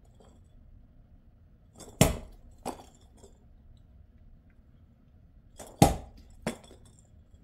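Sharp clinking knocks in two pairs, about two seconds in and again near six seconds: each pair is a loud hit followed by a softer one a little over half a second later.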